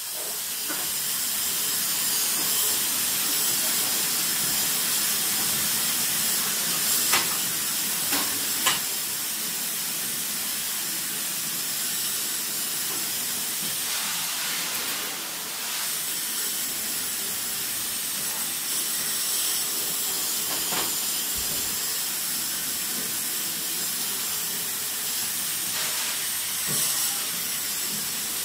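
Steady hiss of a high-pressure water jet spraying the evaporator coil of a wall-mounted split air conditioner, with a couple of brief light knocks partway through.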